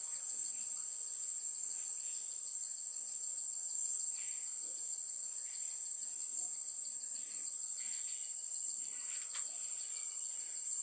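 Steady, high-pitched chorus of insects drone without a break.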